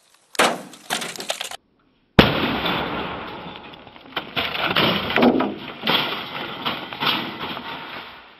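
A 1990 Mercedes 300 airbag fires inside an old Dell desktop PC tower: a single sharp bang about two seconds in. Several seconds of clattering and shattering follow as pieces of the case scatter and land, dying away slowly. Just before it comes about a second of rustling.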